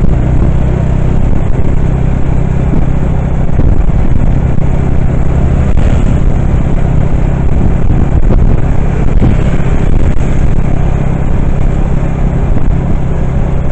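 Steady engine hum and road rumble heard from on board a moving vehicle.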